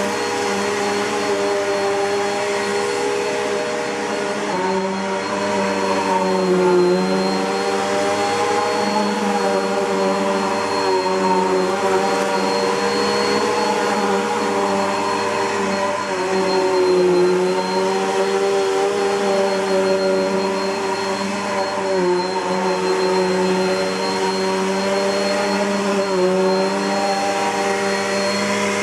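Bissell PowerForce 71Y7 bagged upright vacuum cleaner, built by Midea, running steadily with a high whine over its motor hum. The motor's pitch sags briefly every few seconds as the load on it changes.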